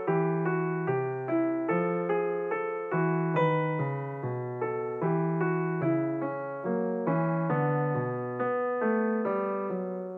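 Background piano music: a steady run of notes, about two a second, each one struck and fading.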